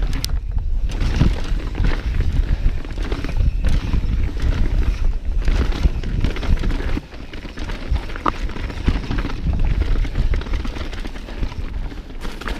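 Yeti mountain bike rolling fast down rocky singletrack: tires on dirt and stones with constant rattling and knocks from the bike, over a rumble of wind on the microphone. The noise eases briefly about seven seconds in.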